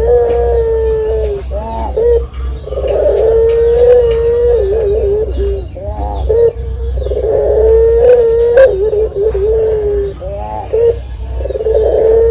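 Collared dove (derkuku) cooing in long drawn-out calls, each held near one pitch for two to three seconds, with short quick notes between them. Four such calls are heard.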